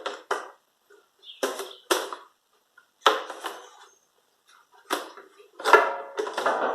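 A series of short knocks and clatters as parts are handled and rubber grommets are pushed back into their holes. Near the end comes a louder cluster with a brief squeak.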